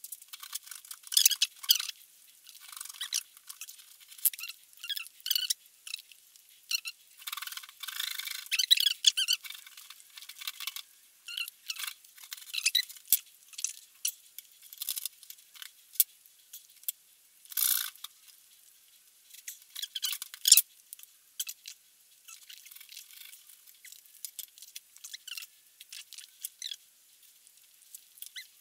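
Knife cutting through a slab of salted pork fat on a wooden cutting board: irregular short scrapes and clicks in clusters, with pauses between cuts.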